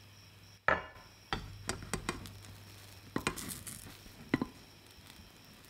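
A soufflé omelette cooking in a small nonstick frying pan: scattered sharp clicks and pops, a dozen or so, over a low steady hum.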